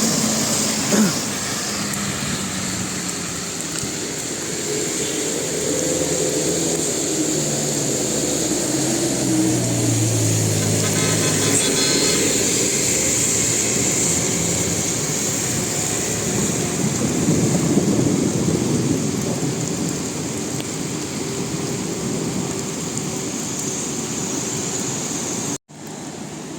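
Road traffic: vehicle engines running as they pass, with a lower engine note stepping down around the middle, over a steady high-pitched hiss. It cuts off abruptly near the end to a quieter background.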